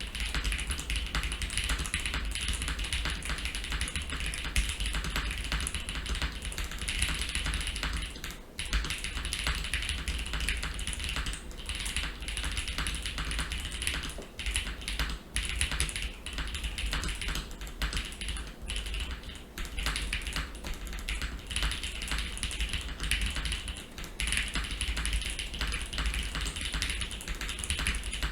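Steady fast typing on a mechanical keyboard with stock, factory-lubed Gateron Pure Berry long-pole linear switches in an ai03 Vega with a polycarbonate plate, plate and case foam, and GMK keycaps. There are short pauses about eight seconds in and again around fourteen seconds.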